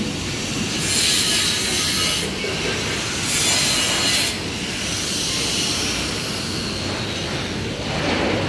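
Handheld angle grinder grinding steel at the base of a welded beam leg: a harsh, hissing grind that grows louder for stretches in the first half as the disc bears down, then runs on more evenly.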